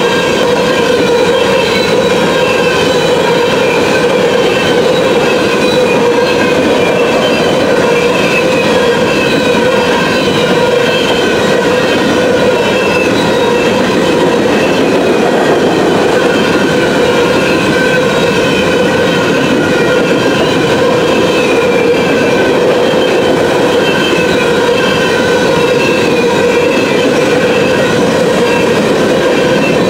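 Freight train of covered hopper cars rolling past close by: a steady rumble of wheels on rail, with high, wavering squeal tones from the wheels running over it.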